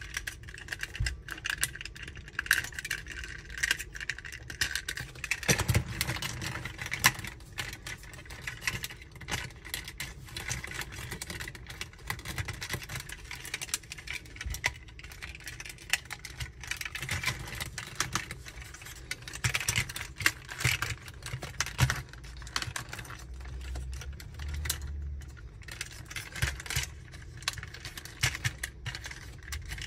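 Plastic parts of a transforming robot action figure being handled, clicking, snapping and rubbing as the joints and panels are moved: many irregular clicks at an uneven pace.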